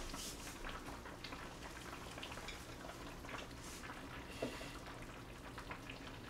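Tuna kimchi stew bubbling faintly in an earthenware ttukbaegi on a gas burner, a scatter of small pops and crackles. A light knock sounds about four and a half seconds in.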